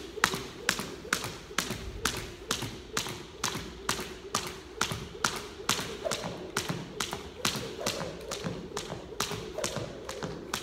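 Skipping with a Crossrope half-pound weighted jump rope: the rope slaps the hardwood floor on each turn in a steady rhythm, about two and a half strikes a second.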